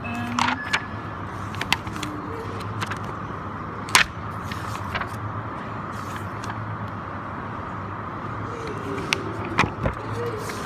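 Shop background noise: a steady droning hum with scattered clicks and knocks, the loudest knock about four seconds in.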